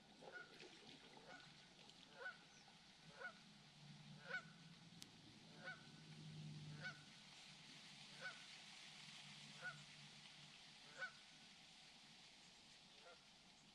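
Faint honking calls of a goose, one roughly every second, coming further apart toward the end.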